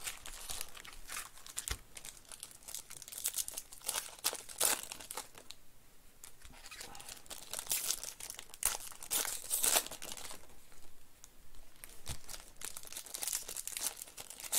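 Foil wrapper of a 2021 Panini Prizm Baseball card pack being crinkled and torn open by hand: a dense run of sharp crackles and rips, easing off briefly about halfway through and again near the end.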